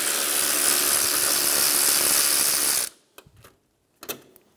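Ratchet wrench clicking rapidly and steadily as it backs out a 10 mm bolt, stopping abruptly about three seconds in, followed by a few light clicks.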